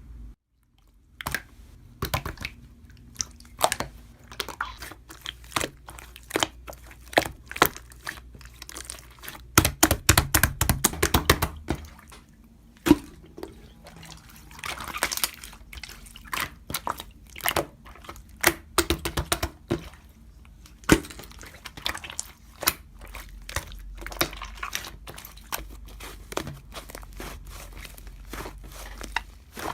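Close-up crunching and crackling: many irregular sharp clicks, thickest about ten seconds in and again around fifteen seconds.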